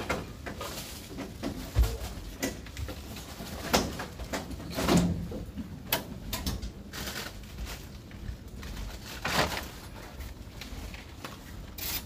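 Supermarket checkout ambience: scattered knocks, clicks and clatter of goods and equipment at the tills over a steady shop background, with a sharper thump about two seconds in.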